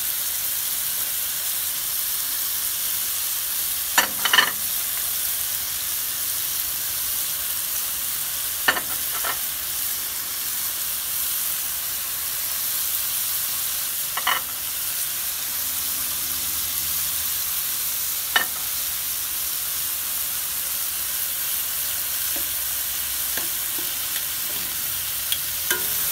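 Chicken pieces and diced peppers sizzling steadily in a hot frying pan, with a few sharp clicks of metal tongs against the pan.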